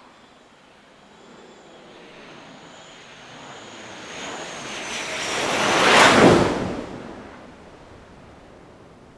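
Jet aircraft flying past: a rushing roar with a thin high whine builds over several seconds, peaks about six seconds in, then fades quickly.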